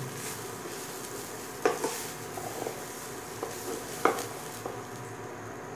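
A spatula stirs grated fresh coconut, cashews, almonds, raisins and fox nuts roasting in a little ghee in a steel pan, over a soft steady sizzle. The spatula scrapes and knocks against the pan a few times, loudest about a second and a half in and again about four seconds in.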